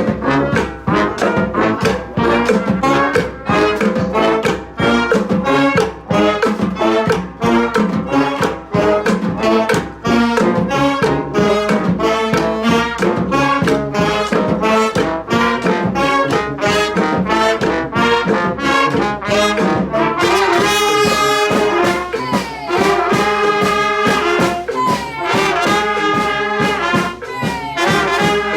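Brass band playing a tune, trumpets and trombones over a steady percussive beat, with louder held horn chords about twenty seconds in.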